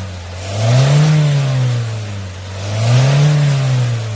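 Hyundai Sonata LPI (LPG) engine with about 300,000 km being revved up and down in a regular rhythm, twice: each rise and fall of engine speed takes about two seconds.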